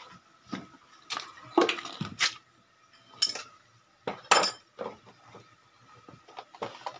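Metal tools and loose engine parts clinking and knocking together in irregular strikes, the loudest a little past one and a half, two, three and four seconds in.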